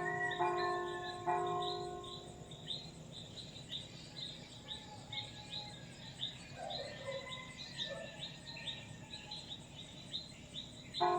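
A church bell is struck twice near the start and rings out over the next couple of seconds, then strikes again right at the end. Throughout, birds chirp in a steady run of short high notes, about two to three a second, with a few lower calls in the middle.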